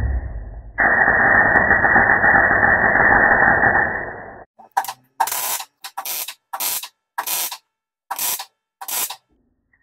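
MIG welder arc crackling as stainless steel is welded: one steady run of about four seconds, then a string of about seven short tack-weld bursts.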